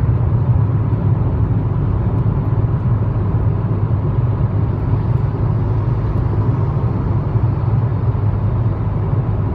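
Steady cabin noise of a Proton Persona 1.6 manual cruising at 110 km/h: a constant low rumble of road and engine noise, with a faint steady tone above it.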